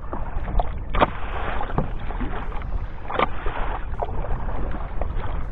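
Choppy, wind-driven river water lapping and slapping against a kayak's hull, with sharper slaps about a second in and just past three seconds, over a low rumble of wind on the microphone.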